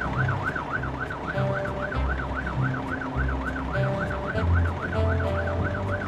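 Cartoon fire truck siren rising and falling quickly, about four times a second, over background music with a bass line.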